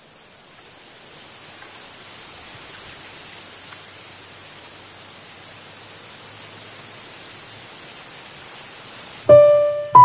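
Steady hiss of wind rustling through bamboo leaves, fading in over the first seconds. Near the end a loud piano note rings out as music begins.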